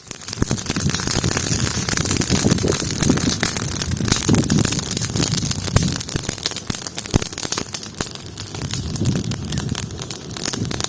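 Open fire burning with dense, steady crackling and popping as a clay-coated whole chicken cooks in it.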